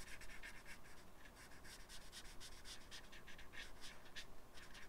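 Felt-tip marker rubbing across paper in quick, faint, repeated strokes, about four a second, while colouring in an area.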